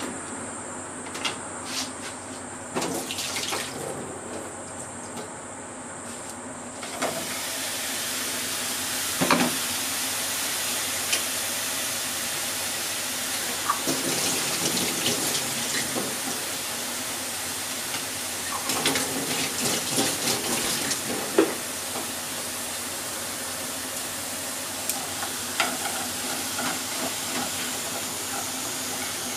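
Sliced eggplant sizzling as it is stir-fried in a pot, the sizzle rising to a steady, louder hiss about seven seconds in. Now and then there are short clicks and knocks as chopsticks turn the slices against the pot.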